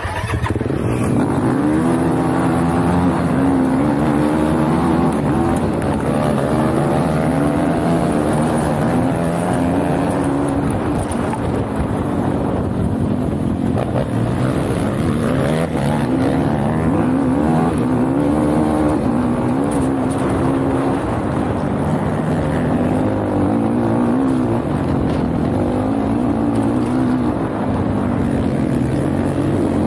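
Sport quad (ATV) engine heard onboard, pulling away hard off the start line and then running at high revs, its pitch rising and falling with throttle and gear changes.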